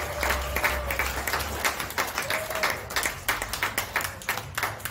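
Audience applauding, with many separate, overlapping hand claps.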